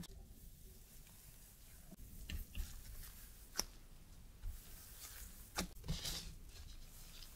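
Gloved hands rolling strips of whole wheat dough on a work surface: faint rustling of thin plastic gloves and soft dough handling, with a few light clicks and taps.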